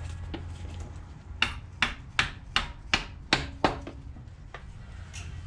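A hammer tapping on metal: seven sharp, evenly spaced blows about a third of a second apart, each ringing briefly.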